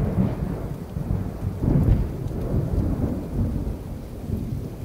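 Rain falling with low rolling thunder. The rumble swells about two seconds in, then eases off.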